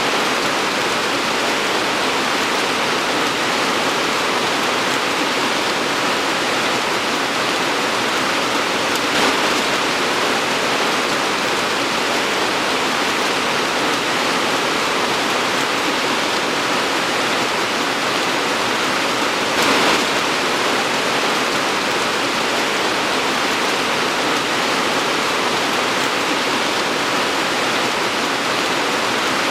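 Torrential rain pouring down in a dense, steady hiss, briefly heavier about nine seconds in and again near twenty seconds.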